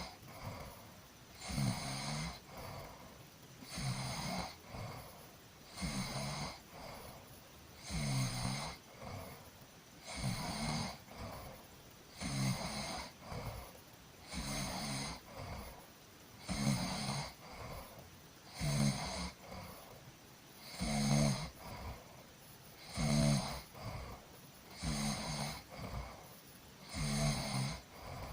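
A person snoring in a steady rhythm, one snore about every two seconds, each a low buzzing snore with a breathy hiss.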